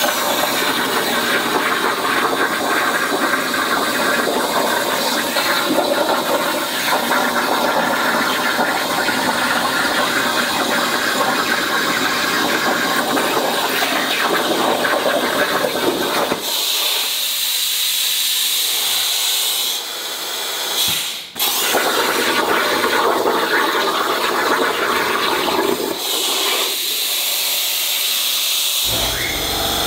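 Hypertherm plasma torch cutting quarter-inch mild steel: a loud, steady hiss of the arc and air jet. About sixteen seconds in, the sound thins to a lighter airy hiss with little low end, cuts out for a moment a few seconds later, then resumes.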